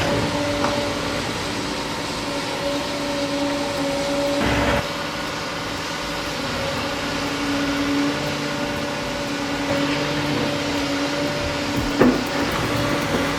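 Heavy construction machine's diesel engine running with a steady hum, with two louder knocks, about four and a half seconds in and again near the end.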